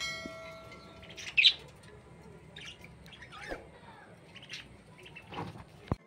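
Caged budgerigars chirping and squawking in scattered short calls from a clay-pot nest box, the loudest a sharp squawk about one and a half seconds in. A short click comes just before the end.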